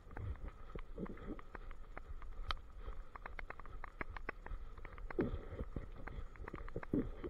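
Quick irregular clicks and taps, several a second, from a German Shepherd walking on asphalt, picked up by a camera strapped to its back: its claws striking the pavement and the mount rattling with each step.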